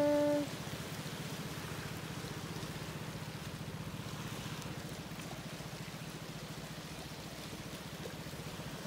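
Faint, steady low chugging of a small boat's engine, over a soft wash of small waves on a pebbly shore.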